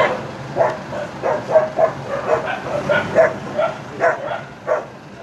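Dogs barking, a quick run of short barks, about two or three a second.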